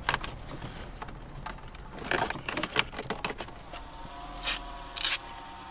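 Cables and plastic connectors being handled inside an opened car dashboard: irregular rustling, scraping and small clicks. Near the end come two short ripping sounds, the backing film being peeled off the Wi-Fi antenna's double-sided adhesive tape, and a faint steady hum comes in about four seconds in.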